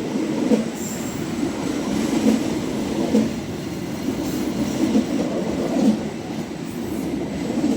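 A train rolling along the track, with a steady rumble of wheels on rail and a clack roughly every second as the wheels cross rail joints.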